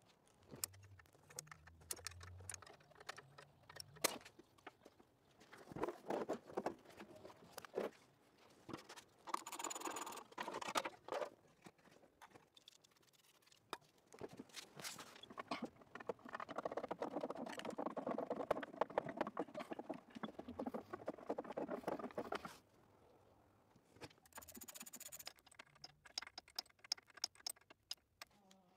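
Hand-tool work on old, rusty car parts: scattered small metal clicks and knocks, with stretches of scraping or rubbing, the longest lasting about six seconds past the middle. Two short hissing bursts come about ten and twenty-four seconds in.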